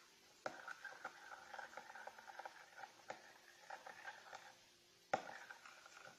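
Glue and water being stirred with a utensil in a bowl: a sharp knock about half a second in, a run of quick scraping, clicking strokes, then another knock about five seconds in followed by more stirring.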